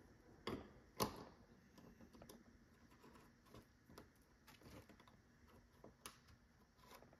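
Faint clicks and ticks from a utility knife being drawn along a rubber fuel line to slit it lengthwise, otherwise near silence. Two sharper clicks come about half a second and a second in.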